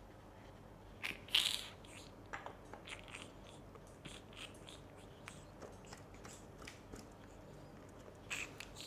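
Faint, scattered clicks, crackles and scrapes of bike parts and tools being handled during a brake fit-up, with a louder cluster of crackling about a second in and another near the end.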